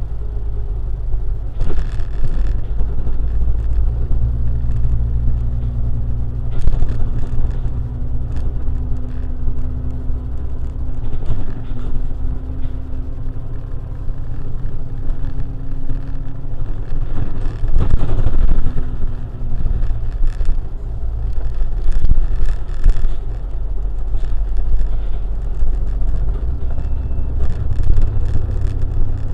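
A car driving in traffic: a steady low rumble of road and engine noise, with a low engine drone holding one pitch through much of the middle.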